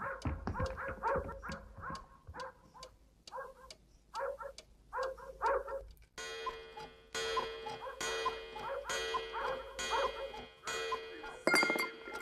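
A dog whining in short repeated cries, over a steady background tone.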